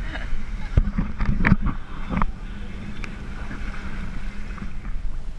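Boat motor running steadily under way, with wind on the microphone and a few sharp knocks in the first couple of seconds.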